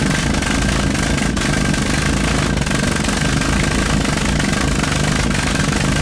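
Custom-made metal Reynst-pot pulse jet burning methylated spirits, running steadily and loudly.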